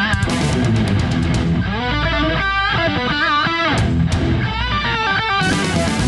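Background rock music: a lead electric guitar playing a melody with bent notes over bass guitar.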